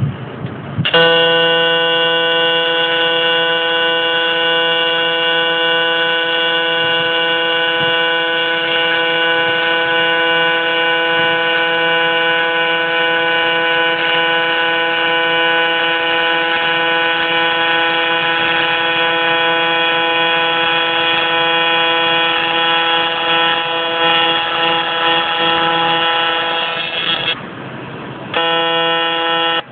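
AC TIG welding arc on aluminium buzzing steadily at one pitch; it breaks off for about a second near the end and is struck again.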